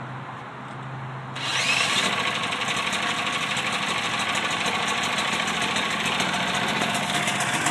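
Small portable generator engine, spun over with a cordless drill, catches about a second and a half in and then runs steadily on regular gasoline.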